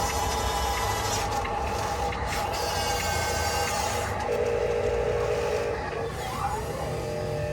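Electric motors and gearboxes of RC construction trucks running with a steady whine over gritty scraping, the whine sliding up and down in pitch about six seconds in as the throttle changes.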